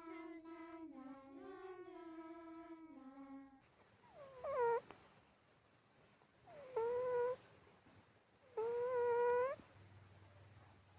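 A cat's voice: a long, low, wavering moan that steps up and down in pitch, then three shorter, louder cries about two seconds apart. The owner calls these sounds the cat's snoring.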